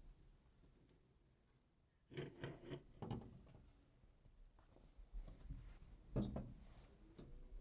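A bird tapping and scratching as it tries to get in, in two short faint bouts of quick clicks and scrapes, about two seconds in and again about six seconds in.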